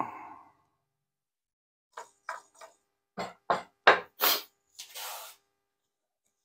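A run of sharp wooden knocks and taps, about six in quick succession and growing louder, followed by two longer rubbing, scraping sounds. Wooden flagpole parts are being handled and set down on a workbench.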